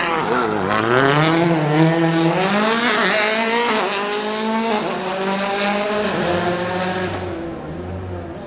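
Rally car engine under hard acceleration, its pitch climbing and dropping back several times with gear changes and throttle lifts, then fading near the end as the car draws away.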